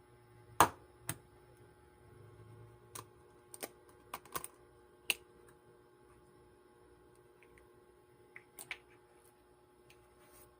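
About a dozen sharp, irregular clicks and taps, some single and some in quick clusters, over quiet room tone with a faint steady hum.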